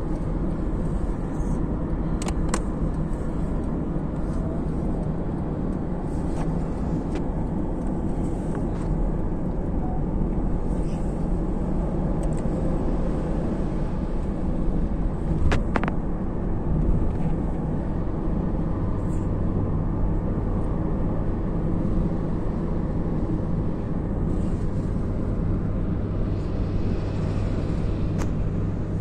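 Steady road noise heard from inside a car cruising on a motorway: a continuous low rumble of tyres and engine, with a few brief faint clicks.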